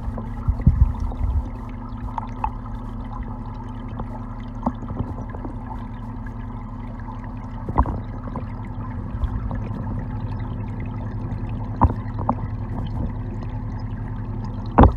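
Muffled water noise of a koi pond heard from below the surface, over a steady low hum, with a few sharp knocks, the loudest one near the end.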